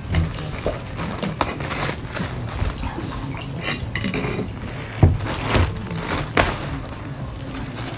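Clear plastic bag crinkling and rustling as it is handled and pulled off a potted bundle of rose cuttings, with a run of sharp crackles and clicks, the loudest about five seconds in.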